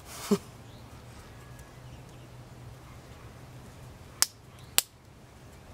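Two sharp clicks about half a second apart, a little over four seconds in, as the string of a handmade leaf-spring mini crossbow is drawn back and latched for a shot. A brief falling sound right at the start, over a low steady hum.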